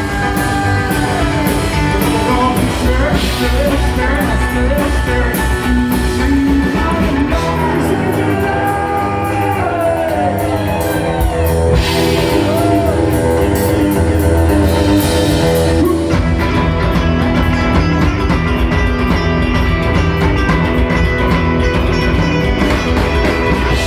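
Live rockabilly band playing: electric guitar lead with bending notes over bass and drums.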